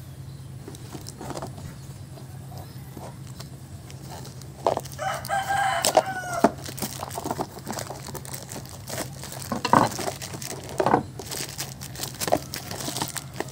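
A rooster crows once, starting about five seconds in and lasting about a second and a half. Scattered knocks and clatter of hand tools being laid on a wooden bench follow.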